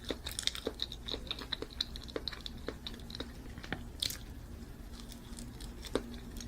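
A person chewing and biting into a banana close to the microphone, with a run of small wet mouth clicks and smacks, a couple a second.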